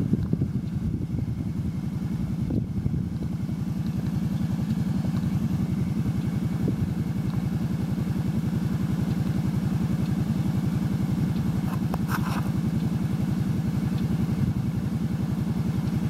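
An engine idling steadily, a low, even, rapidly pulsing sound, with a few thuds in the first three seconds.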